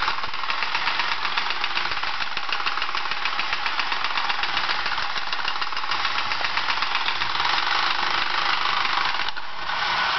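Battery-operated tin toy robot running: its motor and gear train make a fast, even mechanical clatter as it walks and works its opening chest doors. The clatter dips briefly near the end.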